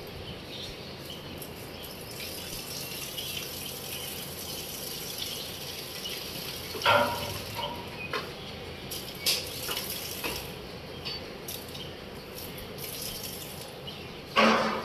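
A steady stream of liquid splashing onto a concrete floor: a dairy cow urinating in the milking stall. Two louder knocks come about seven seconds in and again near the end.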